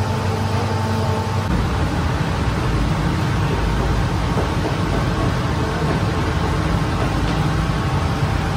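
Steady running noise of bakery machinery: a hum with several steady tones, which turns into a deeper, denser rumble about a second and a half in.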